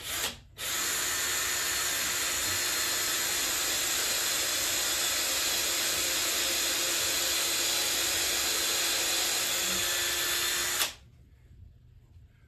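Cordless drill boring into a block of wood: a brief blip of the trigger, then one steady run of about ten seconds that cuts off abruptly near the end.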